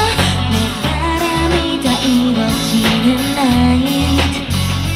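A live pop-rock band plays amplified with a drum kit, guitar and bass, while a woman sings the lead melody into a microphone.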